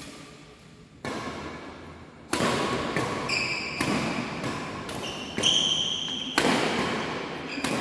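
Badminton rally in a sports hall: several sharp racket hits on the shuttlecock, echoing in the hall, with short high squeaks from shoes on the court floor.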